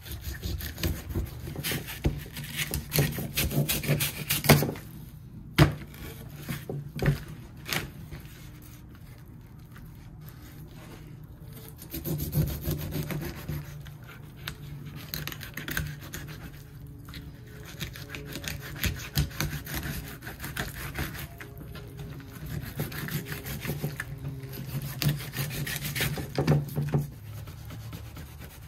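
Knife filleting walleye, scraping and sawing through the fish against a cutting board in irregular strokes over a low steady hum, with a quieter pause partway through.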